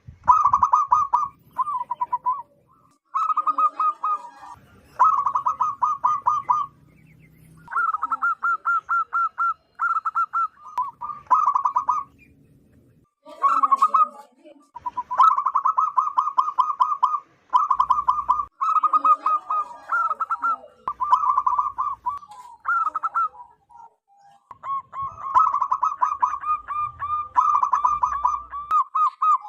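Zebra doves calling: a string of staccato cooing phrases, each a quick run of short pulsed notes, repeated with brief pauses between them.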